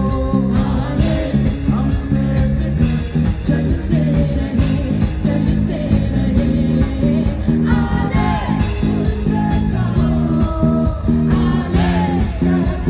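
Live band playing a Bollywood pop song through a PA, with a singer's vocal over keyboards and electric guitar.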